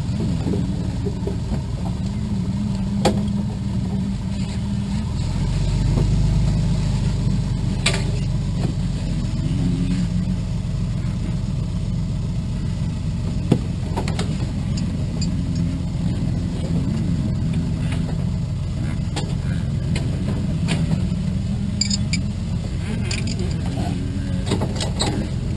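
Light aircraft's piston engine idling steadily, a low hum that deepens about five seconds in, with a few light clicks over it.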